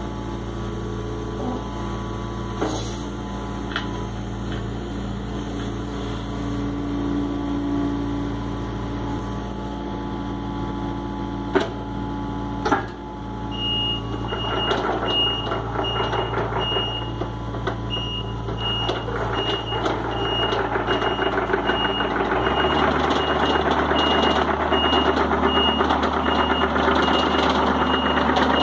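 Case CX55B mini excavator's diesel engine running steadily, with two sharp clanks a little before halfway. From about halfway a motion alarm beeps at an even pace, and the engine note steps up and grows louder about three quarters of the way in.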